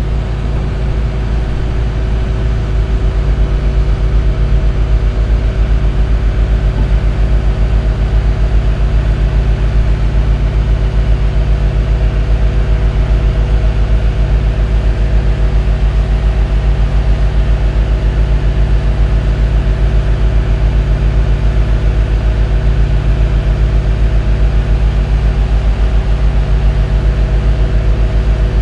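Loud, steady low hum of a running engine or machine, with a fast, even pulse and fixed tones that do not change in pitch.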